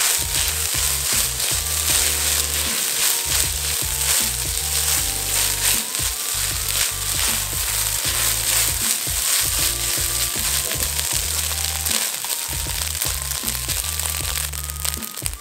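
Rice frying and sizzling in a nonstick wok, with the spatula scraping and tossing it in a steady crackle, over background music.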